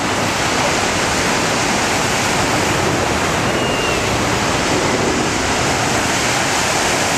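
Steady rushing noise of wind and small waves washing onto a sandy beach.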